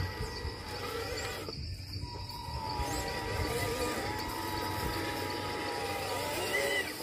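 Small electric motor and gearbox of a radio-controlled model truck whining under load as it crawls up over a curb, the pitch wavering as the motor's speed changes.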